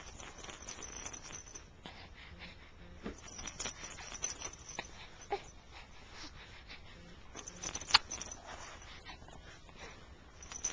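A pet's snuffling, with soft clicks and breathy sounds, and one sharp sneeze about eight seconds in.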